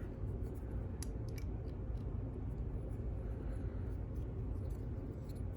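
A few faint metallic clicks and scrapes of a small tool working on a padlock as it is being taken apart, over a steady low hum.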